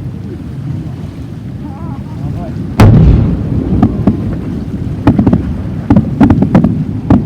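Distant fireworks bursting: a series of sharp bangs, the loudest about three seconds in, then a cluster of quick cracks between about five and seven seconds in. Wind rumbles on the microphone throughout.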